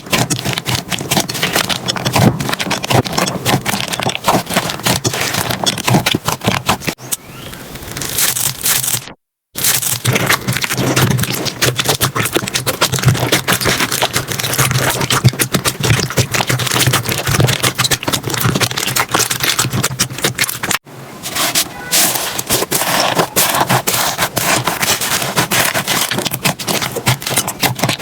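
Slime being squeezed and pressed by hand, giving a dense run of crackling, popping clicks. The sound drops out briefly about nine seconds in and cuts abruptly again around twenty-one seconds, between separate clips.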